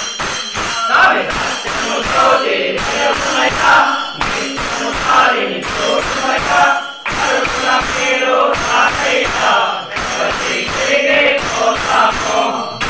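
Group of men singing an Ayyappa bhajan together, with a steady clinking beat from hand-held brass bells and other small metal percussion.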